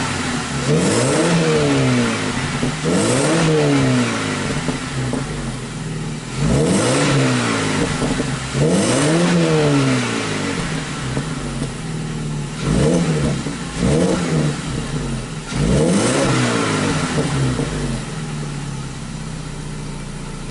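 BMW 316i E90's 1.6-litre four-cylinder petrol engine, fitted with a modified exhaust, blipped from idle about seven times, each rev rising and falling back, with a quick pair about two-thirds in. The engine is still cold.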